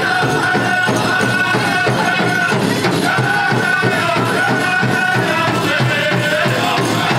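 Pow wow song: a drum group singing in high held voices over a steady beat on a big drum, with a jingling rattle over it, typical of dancers' leg bells.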